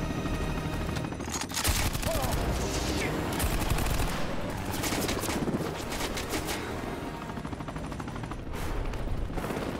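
Machine-gun fire in long rapid bursts, starting about a second in.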